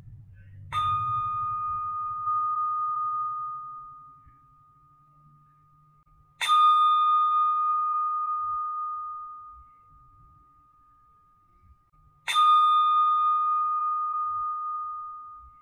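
A Buddhist bowl bell struck three times, about six seconds apart. Each stroke rings a clear high tone with bright overtones that fades away over three to four seconds: the customary bell strokes that open a sutra recitation.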